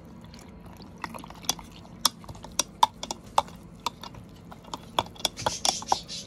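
Metal spoon stirring milk and sugar in a glass jug, clinking irregularly against the glass several times a second, with a quicker run of clinks near the end. The stirring is dissolving ground sugar into the milk.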